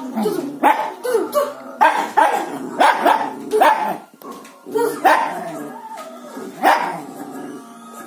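Dog barking repeatedly: a dozen or so short, sharp barks in quick clusters, with a lull about four seconds in and the barking dying away for the last second or so.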